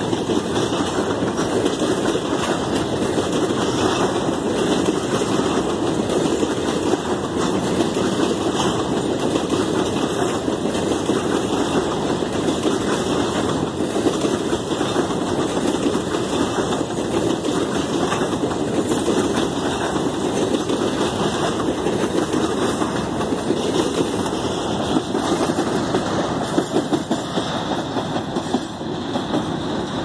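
Long freight train of open-top wagons rolling past on the track: a steady rumble with a dense clatter of steel wheels on the rails, easing off a little near the end.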